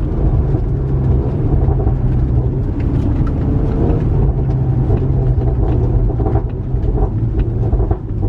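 Honda Accord engine and exhaust running under way with a pops-and-burbles tune: a steady low rumble with scattered sharp exhaust pops and crackles throughout.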